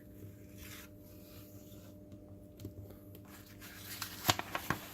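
Faint handling of small plastic robot parts and cables, rubbing and shuffling, with a few sharp clicks about four seconds in, over a faint steady hum.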